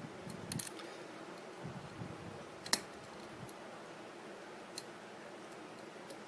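Scattered small clicks of a lock pick and tension wrench working the pin stack of a CX-5 high-security pin-and-slider lock, with one sharper click a little under three seconds in. The picker is raking the pins in search of a false set.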